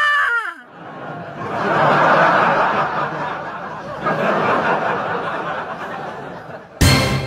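A held tone that slides down in pitch, then a crowd laughing for about six seconds, swelling and fading. Near the end a loud burst of music cuts in suddenly.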